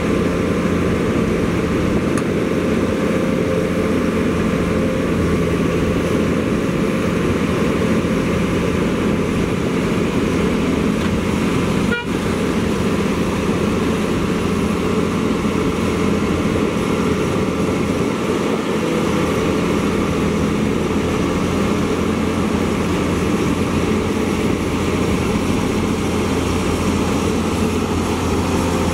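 Komatsu PC210 excavator's diesel engine running steadily at close range, a constant low drone with a humming tone. A single brief click about twelve seconds in.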